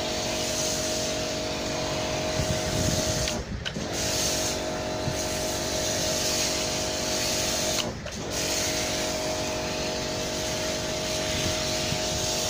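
Electric pressure washer running, its motor and pump humming steadily under the hiss of the snow-foam lance spraying. Twice, about three and a half seconds in and again about eight seconds in, the sound briefly drops away and the hum sags in pitch before coming straight back.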